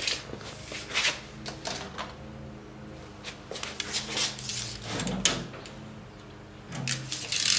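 A steel tape measure being handled: the blade pulled out and set against a metal welder case, with scattered clicks and rattles, shoe scuffs on a concrete floor, and a rustle of clothing near the end.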